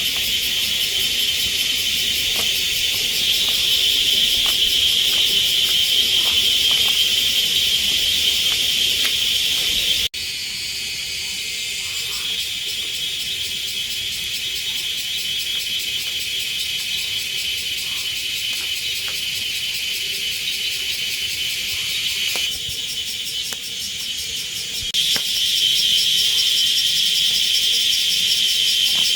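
Steady high-pitched, finely pulsing chirring of a forest insect chorus. It breaks off abruptly about ten seconds in and comes back quieter, dips again later, then swells louder near the end.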